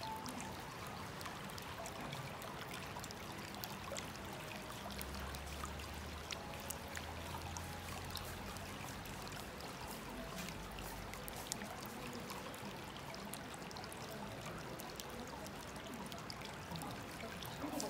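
Water steadily welling up from a stone spout into an open-air stone bath and spilling over its rim onto the slate deck, a continuous pouring and trickling.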